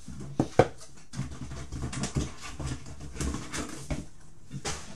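Packing paper rustling and crinkling as items are pulled out of a cardboard box, with two sharp knocks about half a second in.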